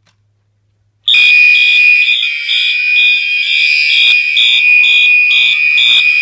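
Silent Knight SK-2 fire alarm system going into alarm after its i3 smoke detector trips: about a second in, the notification appliances start at once, very loud, a steady high tone under a higher tone pulsing about twice a second.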